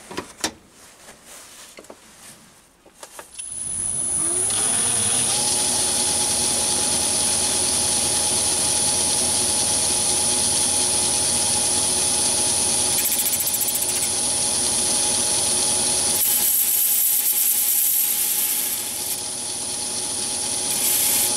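After a few light clicks, a Myford ML7 lathe starts about three seconds in and runs steadily with a high whine, while a boring bar cuts inside a spinning brass workpiece. The sound dips in level for a few seconds near the end, then picks up again.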